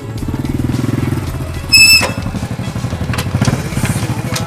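A small engine running with a fast, even pulse, and a brief high-pitched tone a little under two seconds in, the loudest sound.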